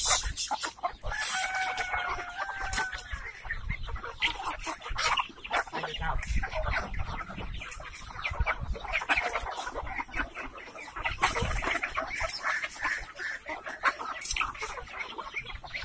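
Large flock of free-range village chickens clucking and calling all at once as they crowd in to be fed, with a rooster crowing once about a second in.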